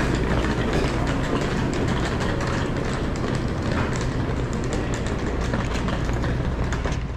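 Indoor station concourse ambience: a steady low hum under continuous noise, with many small clicks and footsteps on top.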